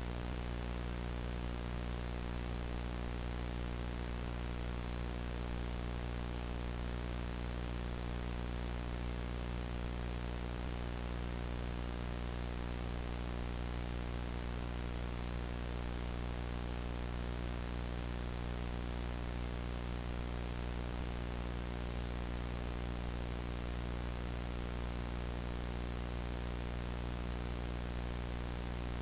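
VHS static: steady analog tape hiss with a low electrical hum underneath, unchanging throughout.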